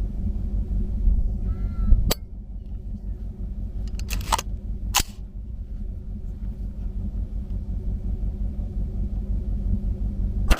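Steady low rumble with a few sharp clicks, then one loud rifle shot right at the end: a 6mm ARC AR-15 firing.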